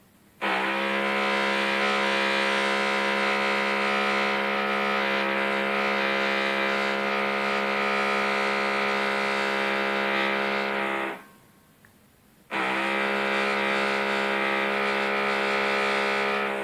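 Hammer drill drilling into concrete at full speed, a loud, steady, unchanging drone. It runs for about ten seconds, stops abruptly, then starts again sharply about a second and a half later.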